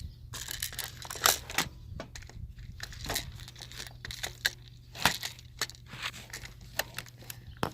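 Irregular sharp clicks and crinkly rustling from handling a plastic BB gun, with the loudest clicks about a second in and again about five seconds in.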